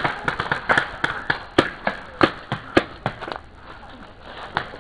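Paintball markers firing: a quick, irregular run of sharp pops, several a second, that thins out after about three and a half seconds, with one last pop near the end.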